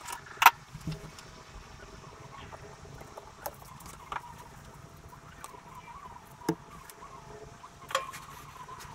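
Scattered sharp clicks and taps of bonsai wire and hand tools being worked onto a redwood's branches, the loudest about half a second in, over a faint steady hum.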